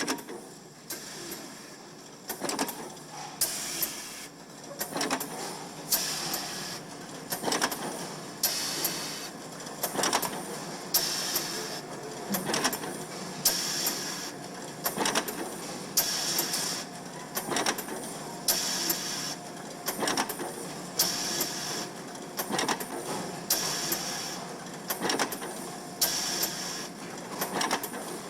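Background music with a steady percussive beat, a strong hit about every second and a quarter with lighter clicks in between.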